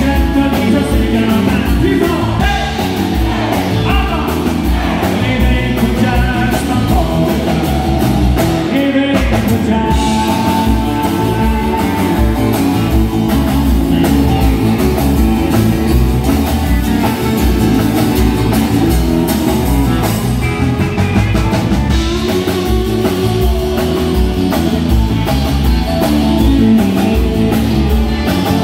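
Live country-rock band playing: a man singing over acoustic and electric guitars and a drum kit, with a steady beat. After about nine seconds the singing stops and the band carries on instrumentally.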